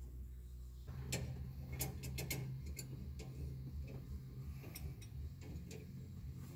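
Sharp, irregular metal clicks and ticks of a hand wrench working on fittings, starting about a second in, over a low steady hum.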